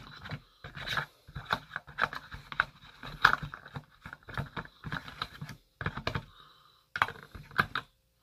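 Hands rummaging in a new phone's rigid black box and its insert: irregular taps, scrapes and knocks of the packaging, with low grunts and mutters under the breath.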